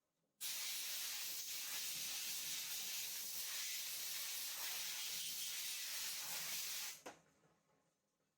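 Steady hiss from a pressurised spray or air nozzle, starting abruptly and held evenly for about six and a half seconds before cutting off.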